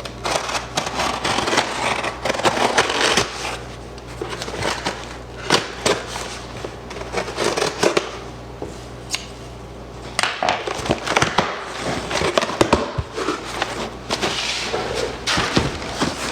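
Small cardboard shipping box being opened and unpacked: irregular crackling, crinkling and rustling of cardboard and packing material, with a short quieter pause about two-thirds of the way through.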